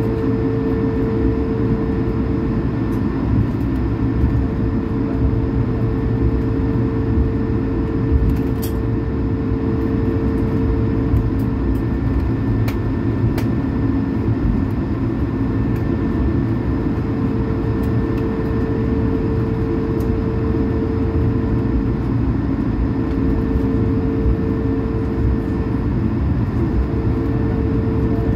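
Cabin noise of an Airbus A220-300 taxiing: its Pratt & Whitney PW1500G geared turbofans running at low taxi power, heard from inside as a steady drone with a held hum and a fainter high whine over a deep rumble. A few faint clicks come through.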